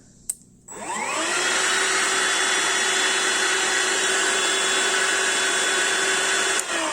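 A click, then a Hoover Air 2-in-1 (BH52100) stick vacuum's suction motor spins up with a rising whine, runs steadily for about five seconds and is switched off, winding down with a falling whine near the end. It is powering up on the switch now that the worn switch contacts have been sanded clean.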